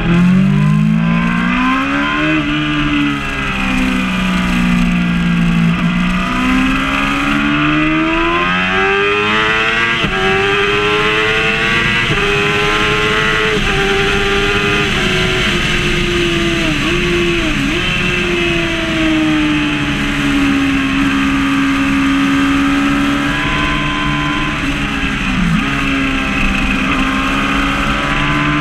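Yamaha R6 (5EB) 600 cc inline-four engine, heard from onboard at trackday pace: the revs climb and fall repeatedly through the gears, with brief dips at each gear change, high and steady for a stretch around the straight and lower through the corners.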